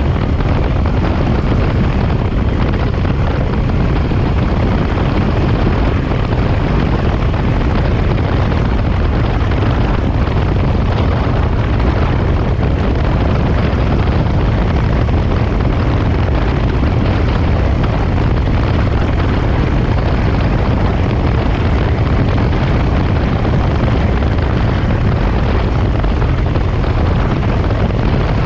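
1967 Triumph Daytona T100R's 500cc parallel-twin engine and exhaust running steadily while the motorcycle is ridden, mixed with wind rushing over the microphone.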